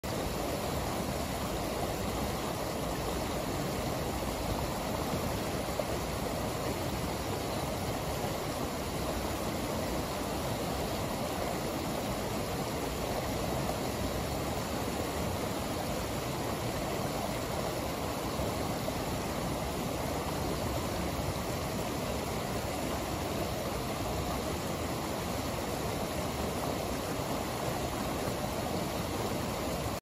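Stream water pouring over a low concrete weir and churning white over the rocks below: a steady rush of water.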